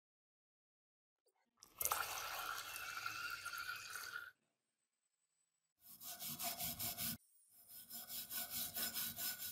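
A stream of water splashing onto rusty steel drill-chuck parts in a glass dish for about two and a half seconds. Then a stiff brush scrubs a rusty chuck jaw in quick back-and-forth strokes, about five a second, in two runs with a short break between them.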